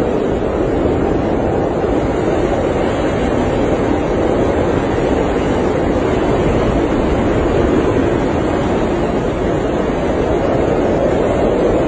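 Blizzard wind blowing steadily, a dense unbroken rush with no gusts or breaks.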